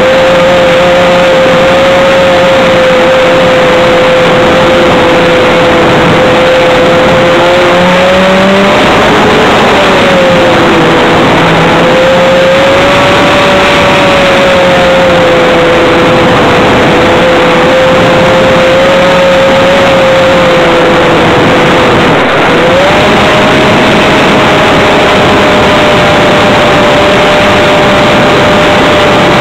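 RC model airplane's motor and propeller, heard close up from a camera riding on the plane, running with a steady whine and a rush of air. The pitch wavers with throttle, rising briefly about a third of the way in and stepping up to a higher, steady pitch about three quarters of the way through.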